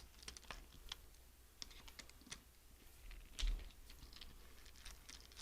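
Quiet, irregular clicks and taps of a small Torx screwdriver and metal hard-drive parts being handled, with a duller knock about three and a half seconds in.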